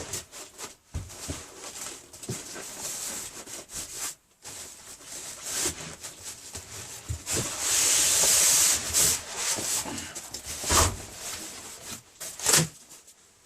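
Cardboard packaging being handled and scraped as a boxed air compressor is worked out of its box: irregular rubbing and rustling, a longer, louder scrape a little past the middle, and a couple of knocks near the end.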